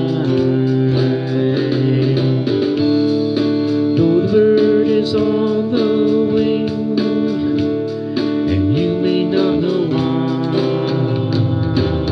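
Harmonica in a neck rack playing an instrumental break of long held notes with a few bends, over strummed acoustic guitar.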